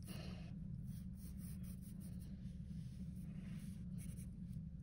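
Pencil scratching on paper as hills are sketched in with quick strokes, faint over a steady low hum.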